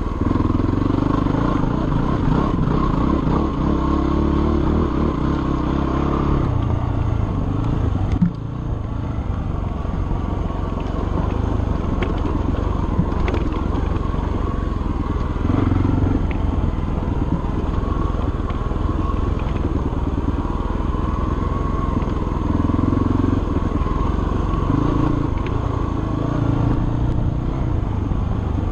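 Dirt bike engine running under way on a trail, its revs rising and falling with the throttle, with a single sharp knock about eight seconds in.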